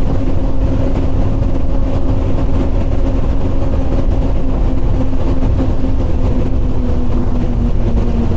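Twin Mercury Racing 400R V10 outboard engines running at high speed, a steady drone over a heavy rumble of wind and hull on the water, with wind buffeting the microphone. The engine pitch drops slightly near the end.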